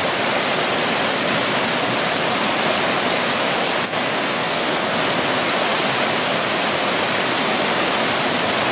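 Whitewater rapids of a swift, high brook rushing in a steady, unbroken roar of water.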